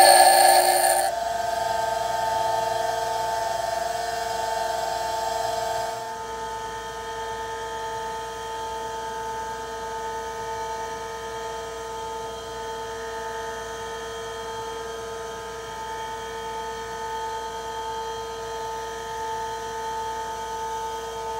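Bench grinder wheel grinding the cutting edge of a steel twist drill, stopping about a second in; the grinder then keeps running with nothing against the wheel, a steady whine that drops a little quieter about six seconds in.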